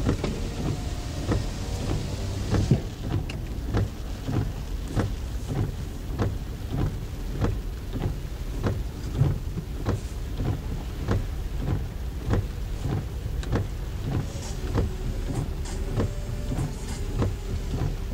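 Car interior on a rain-soaked road: windshield wipers beating in a steady rhythm, about three strokes every two seconds, over low engine and road rumble. A hiss of rain fades out about three seconds in.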